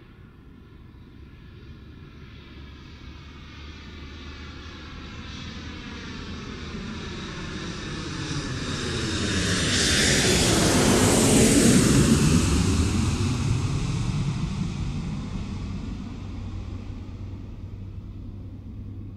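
An aircraft passing by: a rushing engine noise that builds slowly, peaks about twelve seconds in, then fades away.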